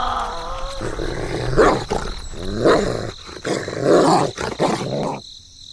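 An animal growling in four or five loud, rough bursts about a second apart, after a short falling cry at the start.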